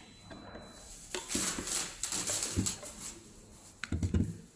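Handling noise from a plastic thermal receipt printer being turned over and set down: rustling and scraping, a sharp click, then dull thumps near the end as it lands upright.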